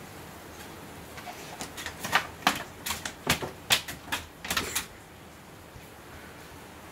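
A quick, irregular run of about a dozen light knocks and clicks over some three seconds: a small hard plastic cup or bowl being knocked and set down against a wooden shelf.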